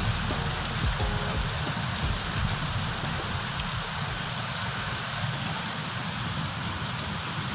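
Heavy monsoon rain falling and pattering on surfaces, a steady even hiss.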